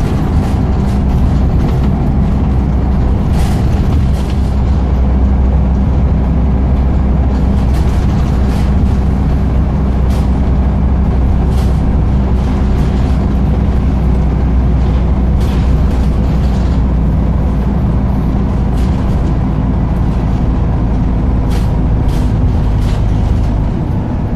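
Scania N94UD double-decker bus under way, heard from inside the lower deck: the diesel engine runs with a steady low hum over road noise, with brief rattles from the body and fittings. The engine note eases near the end.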